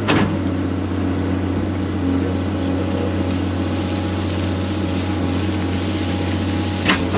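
Excavator's diesel engine running steadily under load while digging, with a short knock right at the start and some clatter near the end.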